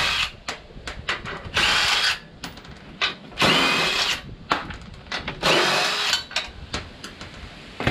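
DeWalt cordless impact driver spinning in four short runs about two seconds apart, each a whine that rises and falls, as it backs out the four bolts holding the stock bumper of a Polaris RZR Pro XP. Light clicks of handling come between the runs.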